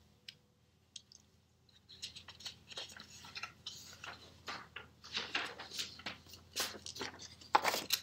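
Sheets of paper rustling and crinkling as they are handled and flipped over on a clipboard. The rustling starts about two seconds in and is loudest near the end.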